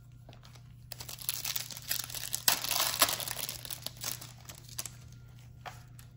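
Foil wrapper of a trading-card pack crinkling and tearing as it is torn open by hand. The crackle starts about a second in, peaks near the middle and dies away about five seconds in, leaving a few small clicks.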